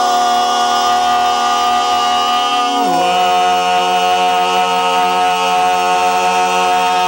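Barbershop quartet of four men singing a cappella, holding the final chord of the song. About three seconds in, the harmony moves to a new chord with the bass dropping to a lower note, and that chord rings on.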